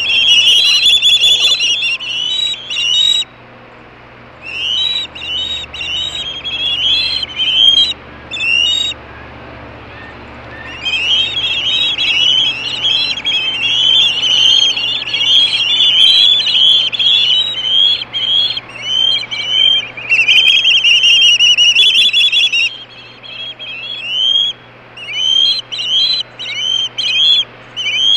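Young ospreys screaming on the nest: fast runs of shrill, rising whistled calls from several birds at once. The calling breaks off briefly twice in the first ten seconds, then runs unbroken for about ten seconds before turning choppy near the end.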